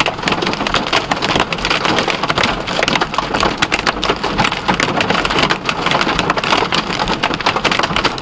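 Large hail, about golf-ball size, pelting the vehicle's roof and windshield as a dense, steady clatter of impacts heard from inside the cab.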